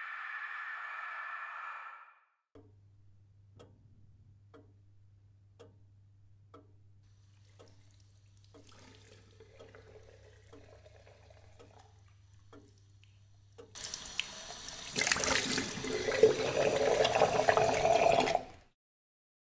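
A water tap running into a sink, a loud rush for about five seconds that stops abruptly. Before it, slow ticking about once a second over a low steady hum.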